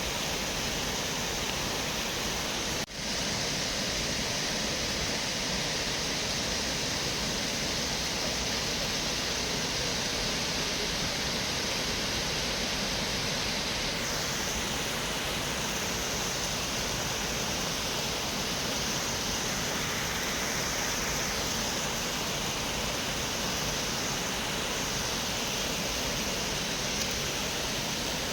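Shiraito Falls' many thin cascades pouring steadily: an even rush of falling water, with a momentary break about three seconds in.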